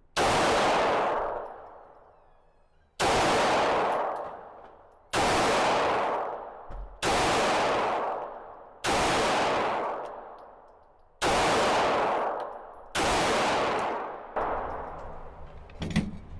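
Glock 45 Gen 5 9mm pistol fired seven times, slow aimed shots about two seconds apart, each crack trailing off into a long echo.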